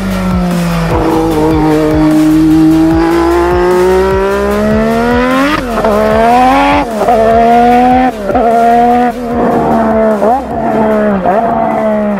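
A racing car's engine revving hard and shifting gear: its pitch climbs slowly for about five seconds, then dips and climbs back several times in quick succession.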